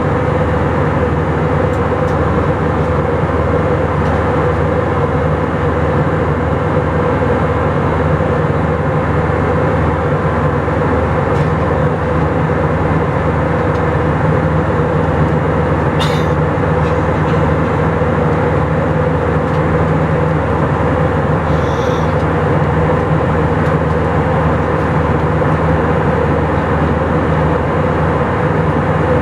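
Steady drone of an Airbus A319's jet engines and rushing air, heard inside the passenger cabin, with a low hum under it. A brief click comes about halfway through, and a short faint high tone a few seconds later.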